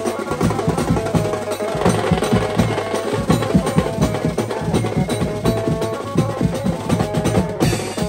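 Music with fast, dense drumming and a melody held over it.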